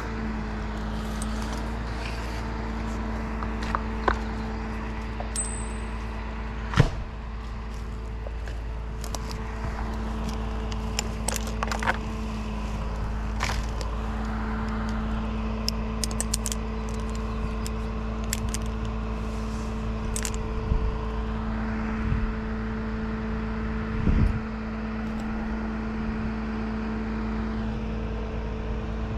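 An engine running steadily at an even pitch, with scattered metallic clinks and knocks like climbing hardware jangling, and a louder knock about seven seconds in and again near twenty-four seconds.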